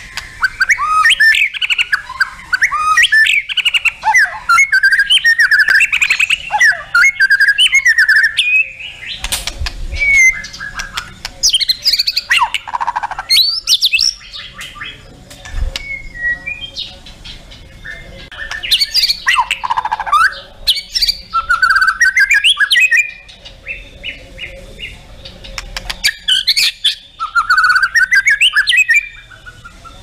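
White-rumped shama (murai batu) singing a loud, varied song of whistled phrases and quick trills, in bursts of a few seconds with short pauses between.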